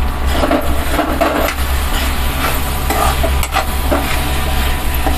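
A spatula stirring and scraping chicken fry around a kadai in irregular strokes, mixing in ground spice powder, over the sizzle of the chicken frying in its own oil. A steady low hum runs underneath.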